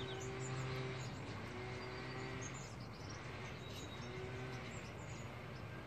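Faint background room tone: a steady low hum that fades in and out, with a few faint high chirps.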